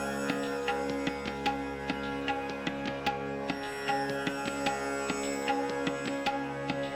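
Calm background music: a steady sustained drone with plucked string notes and light hand-drum strikes over it.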